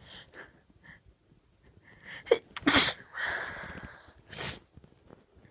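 A person sneezing: a quick catch of breath, then one loud sneeze about halfway through that trails off into a breathy exhale lasting nearly a second, followed by a shorter breathy burst.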